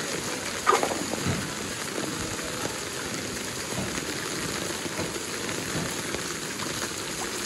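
Heavy rain pouring onto a wet street, a dense steady hiss. A single sharp knock stands out less than a second in.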